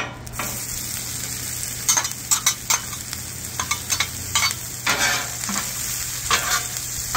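Diced onions sizzling in hot ghee on a Traeger Flatrock gas griddle, the hiss jumping up just after the start as they hit the hot griddle top. A metal spatula scrapes and taps on the griddle at intervals as it spreads them.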